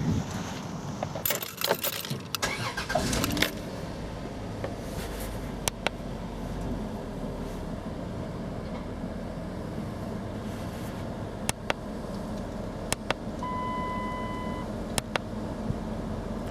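Handling clicks and rustling as an OBD-II code reader is plugged into a car's diagnostic port. Then comes a steady low background with a few sharp clicks. One steady electronic beep lasts about a second and a half, around thirteen seconds in.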